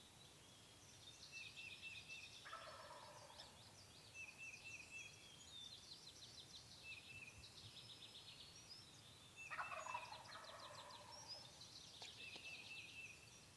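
Wild turkey gobbler gobbling twice, faintly, about two seconds in and again near ten seconds, the second louder, with songbirds singing and trilling throughout.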